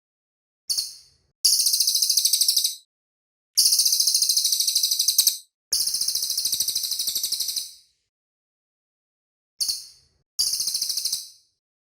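A cililin, a small songbird kept as a singing bird in Indonesia, singing very high-pitched rapid trills of about ten notes a second. A short burst comes just under a second in, then three long trills of about one and a half to two seconds each, then another short burst and a final trill near the end.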